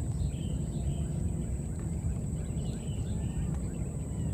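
Outdoor ambience: a steady low rumble with a constant thin high tone over it, and faint short chirps here and there.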